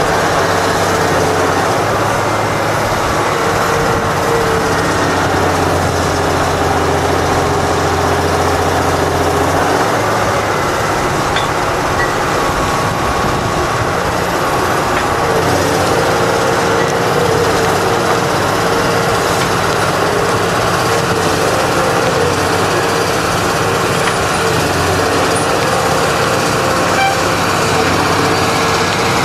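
Harvestline mobile cable yarder's engine running steadily under load as its cables haul the grapple carriage and a log along the skyline. The engine note changes about ten seconds in and again around fifteen seconds.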